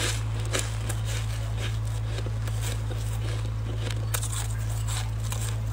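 Freezer frost crunching while being chewed and crackling as it is squeezed in a plastic-gloved hand: small crisp clicks throughout, with one sharper click about four seconds in. A steady low hum runs underneath.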